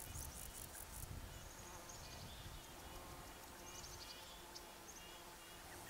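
Faint forest ambience. An insect trills in quick high pulses through the first second, then small birds chirp in short scattered notes, over a low wind rumble.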